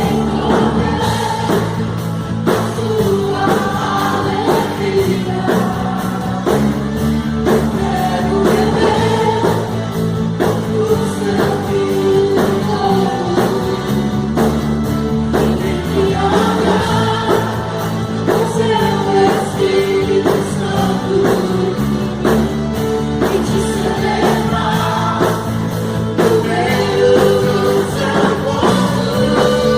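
A worship band playing a gospel song with sung vocals over a drum kit keeping a steady beat.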